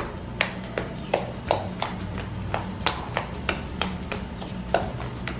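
Homemade butter-and-toothpaste slime making sharp little pops and clicks as fingers poke and press into it, about two to three a second.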